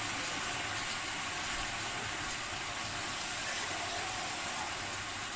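Sweet cured pork (tocino) sizzling and simmering in a pan in about half a cup of water, a steady hiss.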